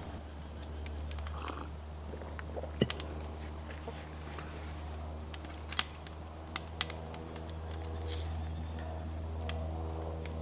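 A metal fork clinking and scraping against a plate as noodles are twirled and lifted, with a few sharp clicks, the loudest about three seconds in, over a steady low hum.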